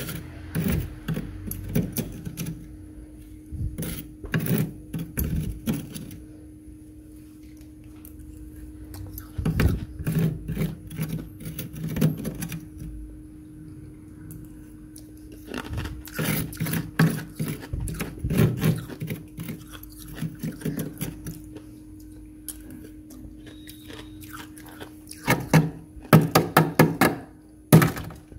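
A metal utensil scraping and crunching through thick frost inside a freezer compartment, in bursts of rapid strokes with short pauses between them. A steady low hum runs underneath.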